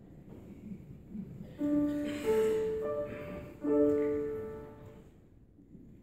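Grand piano sounding a few sustained notes and chords: four are struck between about one and a half and four seconds in, and the last is left to ring and fade away.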